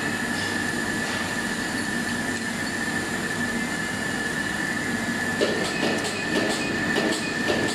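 Suspended hook-type shot blasting machine running: a steady high whine over a rushing mechanical noise, with irregular clattering and rattling from about five seconds in.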